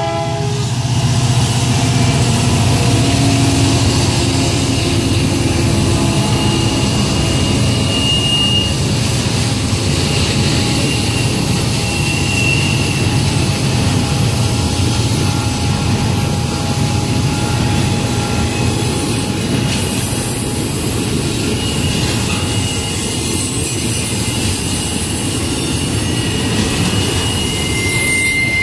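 Norfolk Southern double-stack container train passing close by. The diesel locomotives' engine drone is heaviest in the first few seconds, then the loaded stack cars roll past with a steady rumble, broken now and then by thin high wheel squeal.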